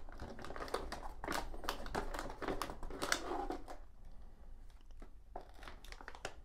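A metallic anti-static bag crinkling and rustling as it is handled and lifted out of a cardboard box, with light taps and scrapes against the box. It goes quiet for about a second and a half about four seconds in, then rustles again.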